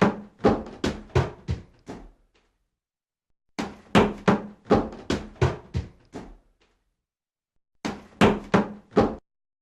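Heavy knocking in three runs, each a quick series of hard knocks about three a second, with short silences between them. The first two runs fade as they go, and the last is shorter and stops abruptly.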